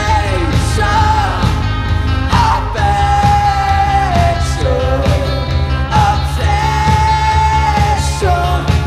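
Rock band playing live, with a singer holding long notes over electric bass, electric guitar and drums.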